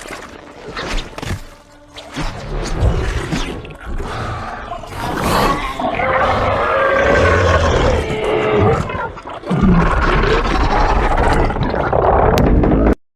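Monster-movie sound effect of King Ghidorah, the Monsterverse's three-headed dragon, roaring and screeching in long, wavering, gliding calls over some impacts, cutting off suddenly near the end.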